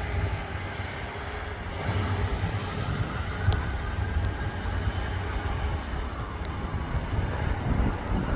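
Train passing close through the station: a steady low rumble with an even rushing noise.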